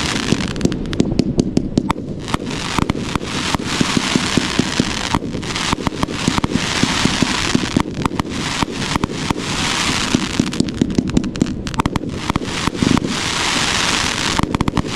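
1.4G fireworks cake 'Neon to Crackling Flower' firing shot after shot. Runs of sharp pops and reports alternate with a dense hiss of crackling stars.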